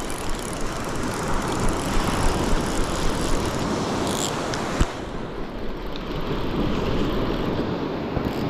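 Large fixed-spool beachcasting reel being wound in, its gears whirring, over wind rumbling on the microphone and surf washing the shore. A single sharp click a little under halfway through.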